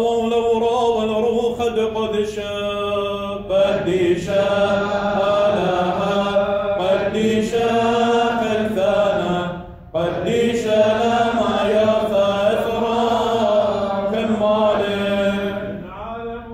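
Men chanting the Syriac liturgy of the Assyrian Church of the East: a melodic line of long held notes that slide between pitches, with a brief break about ten seconds in.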